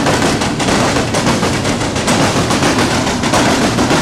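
Freight train cars passing close by: steel wheels rolling and clattering over the rail with a loud, steady rumble and rapid clacking.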